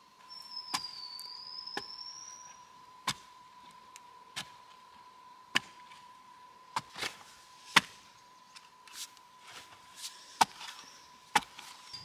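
A series of sharp knocks, about one a second at uneven intervals, over a faint steady high tone, with a short rising whistle near the start.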